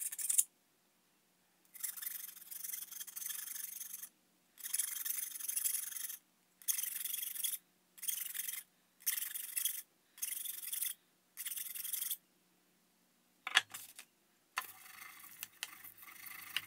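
Flat file drawn across the edge of a thin steel transfer-case clutch-pack shim in about seven separate scraping strokes, deburring its sharp edge. A couple of light knocks follow, then a quieter steady rubbing as the shim is worked flat on the abrasive.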